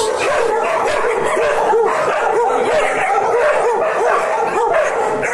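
A pack of dogs and puppies barking and yipping together, many short, fairly high calls overlapping without a break.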